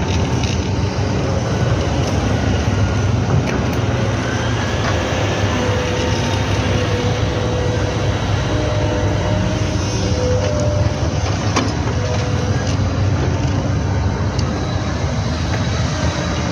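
Hydraulic excavator's diesel engine running hard at full throttle, a steady heavy rumble with a wavering whine over it and a few sharp clanks.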